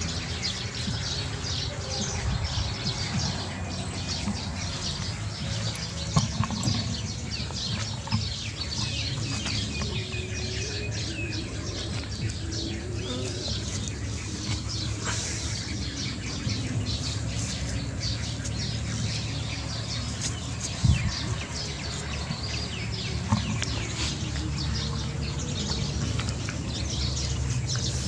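Small birds chirping over and over in the background, with a low steady rumble and a few sharp knocks.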